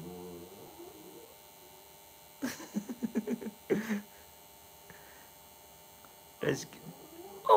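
Short bursts of vocal grumbling from a Lhasa Apso: a quick run of pulses about two and a half seconds in, a shorter sound soon after and a brief one near the end, over a steady electrical hum.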